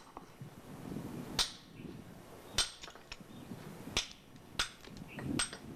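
Mason's hammer tapping on stone slabs as they are bedded into mortar: about six sharp, irregularly spaced knocks, some with a short high ring.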